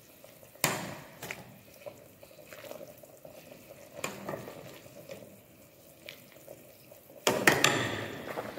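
A metal ladle knocking and scraping against a metal cooking pot as it stirs and scoops Manchurian balls in boiling gravy, with a few separate knocks and a louder clatter near the end. The gravy bubbles faintly underneath.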